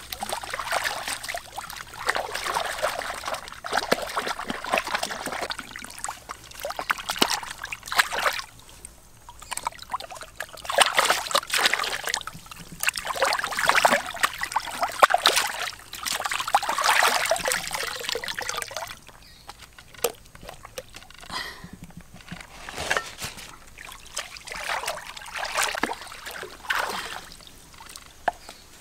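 Water splashing and sloshing in irregular bursts, with short lulls between them.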